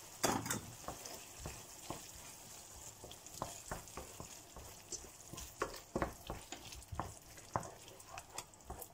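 Wooden spoon stirring a sizzling tomato sauce in a frying pan: irregular scrapes and taps of the spoon against the pan over a soft, steady sizzle.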